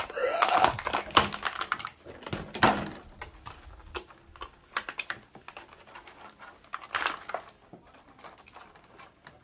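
Clicking and crackling of a plastic doll box and its cardboard insert being handled while a doll is worked free of her packaging straps, busiest in the first three seconds.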